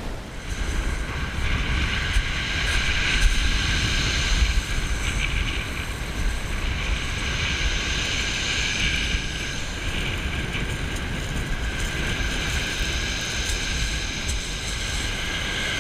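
Wind buffeting the microphone in a steady low rumble, with a steady high whine running underneath.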